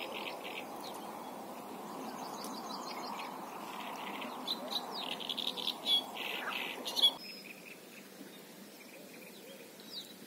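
Small birds chirping in short repeated phrases, over a steady rushing hiss that cuts off suddenly about seven seconds in, with a couple of sharp knocks just before it stops.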